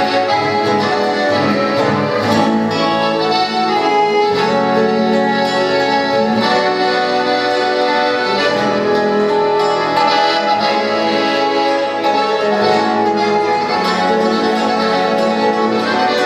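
A trio playing Latin American music live, instrumental, with several instruments holding sustained notes and chords that change every second or two.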